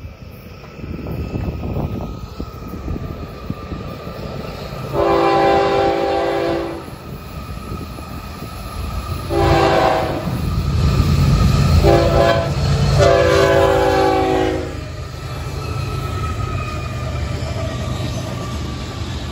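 Florida East Coast Railway freight locomotive's air horn sounding the grade-crossing signal, a chord of several notes: long, long, short, long. Beneath the horn is the low rumble of the GE ES44C4 diesel locomotives and the train's wheels, swelling from about halfway through as the train reaches and passes the crossing.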